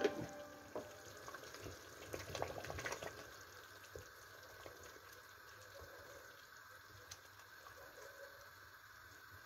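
Tomato stew simmering faintly in a stainless steel pot, with a wooden spoon knocking and scraping as it stirs. The knocks cluster about two to three seconds in, with a few single ticks later.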